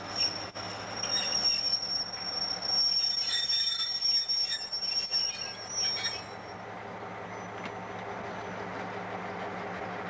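CIE 001-class diesel locomotive running in slowly and squealing high-pitched as it slows to a stop, the squeal dying away about six and a half seconds in. Its diesel engine then runs steadily at a standstill.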